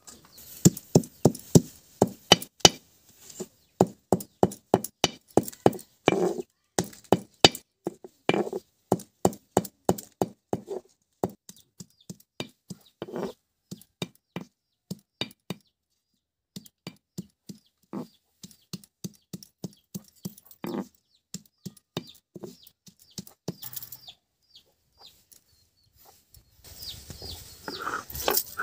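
A hand-held stone pounding garlic, dried red chillies and onion on a wet flat grinding stone: a long run of sharp knocks, about three a second, that thins out and stops about 24 seconds in. Near the end a rougher, steadier scraping starts as the stone is worked over the slab.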